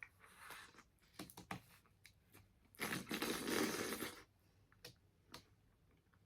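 Close mouth sounds of someone chewing a wax candy shell with a Jello filling: soft, scattered clicks, with a longer noisy rush about three seconds in.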